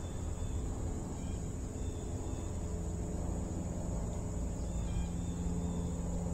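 Steady low rumble of distant road traffic, with a faint engine hum growing stronger about halfway through, over a constant high-pitched drone of insects.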